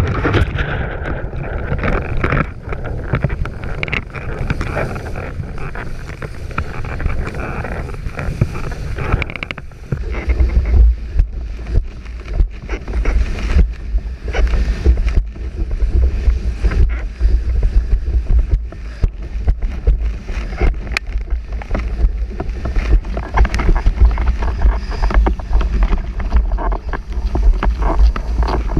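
Wind buffeting the microphone of an action camera mounted on a windsurf rig at speed, over rushing water and spray from the board. From about ten seconds in the wind rumble becomes heavier and deeper.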